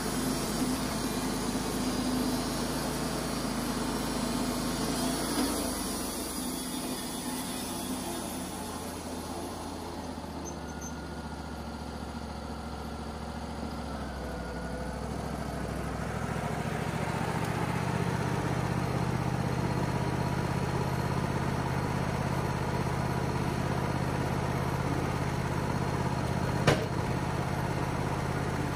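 Wood-Mizer LT35 portable bandsaw mill running: the blade is cutting through the end of the log at first, then the engine runs steadily with the blade clear of the wood. One sharp click near the end.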